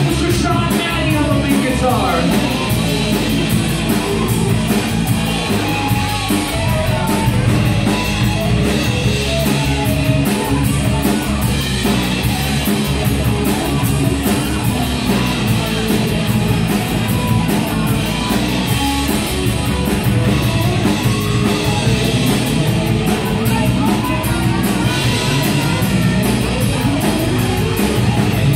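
Live rock band playing loud, with drum kit, electric guitar and a singer.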